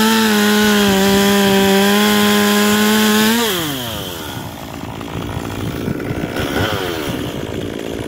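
Two-stroke top-handle chainsaw cutting through a walnut log at full throttle, with a steady high engine note. About three and a half seconds in, the cut finishes and the throttle is released. The engine winds down to a lower idle, with one short rev blip about two-thirds of the way through.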